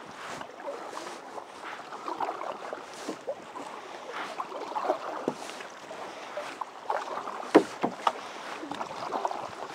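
Handling noise: rubbing and irregular knocks close to the microphone while the camera is covered. The loudest knock comes about seven and a half seconds in.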